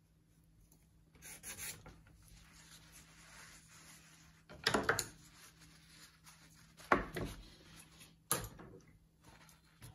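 Oil-painting brush scrubbing and scraping paint on a hard panel and palette. A soft scrape comes about a second in, with quieter rubbing after it, then three short, louder strokes about two seconds apart.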